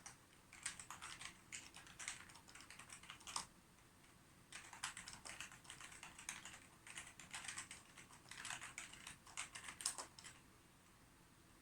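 Computer keyboard being typed on in quick runs of key clicks, with a short pause about a third of the way in and the typing stopping about a second before the end.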